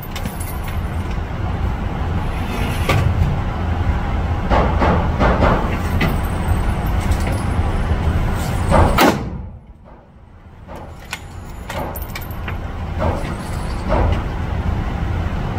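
Gunshots at an indoor shooting range, heard as scattered muffled bangs over a steady low rumble. The loudest bang comes about nine seconds in and is followed by a brief drop in level.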